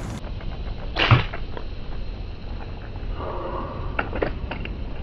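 A slingshot firing a fishing arrow at a crab in shallow water: one sharp snap and thud about a second in, followed by a few light knocks.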